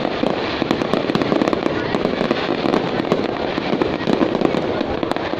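Fireworks going off continuously, a dense stream of many overlapping pops and crackles with no pause.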